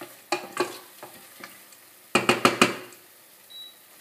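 Wooden spatula stirring and scraping a tomato and pepper sofrito frying in a stainless steel pot, over a low sizzle. About two seconds in, a quick run of four or five sharp knocks of the spatula against the pot are the loudest sounds.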